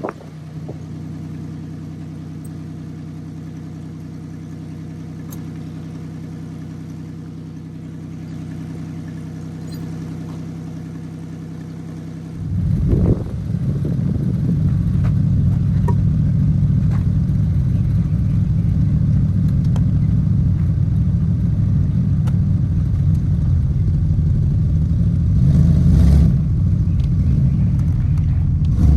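Buick car engine running on its first start after a fresh oil change, idling steadily at first. About twelve seconds in it suddenly becomes louder and rougher and stays that way.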